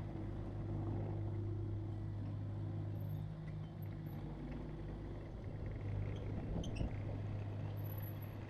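Kubota track hoe's diesel engine running steadily at a low, even note, with a few small knocks from the machine.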